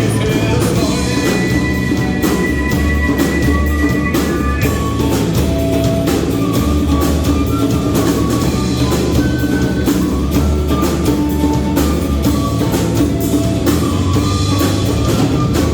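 Live rock band playing: a drum kit beating a steady rhythm under guitar and held melody notes.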